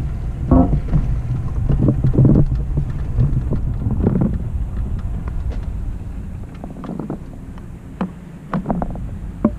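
Wind buffeting the microphone of a moving camera as a steady low rumble, easing off somewhat in the second half, with scattered sharp clicks and knocks, a few of them close together near the end.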